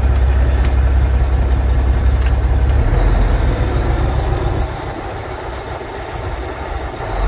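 Kenworth T660's Cummins diesel engine idling, heard from inside the cab: a steady low rumble that sounds smooth. It drops somewhat in loudness a little past halfway, and there are a few light clicks in the first two seconds.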